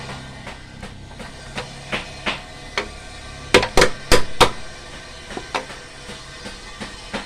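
Hammer blows during bandsaw blade repair: scattered lighter taps, then a quick run of about five hard blows about halfway through, with a few more light taps after.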